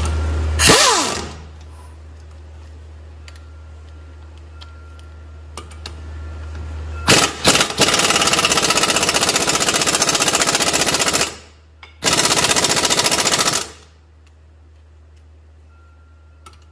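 Impact wrench hammering out the two 17 mm caliper bracket bolts on a front brake. There is a short burst about a second in and a few quick stabs around seven seconds. Then come two long rattling runs, one of about three seconds and one of about a second and a half.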